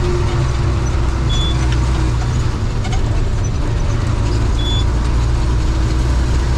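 Bus engine running with road noise, heard from inside the cabin while driving: a steady low rumble.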